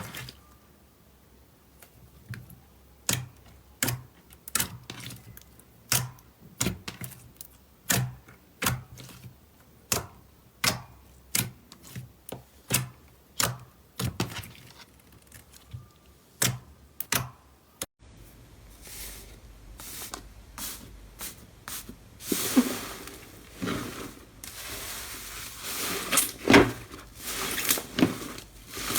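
Slime being poked and pressed, making sharp clicking pops about once a second. After a sudden cut, it gives way to denser crackling and crunching as slime is squeezed.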